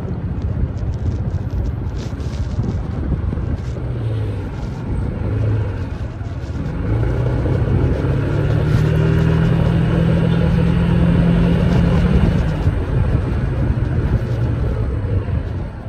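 Yamaha SMAX 155 scooter's single-cylinder engine running on the move. Its note rises and grows louder about halfway through as the scooter speeds up, then eases back near the end.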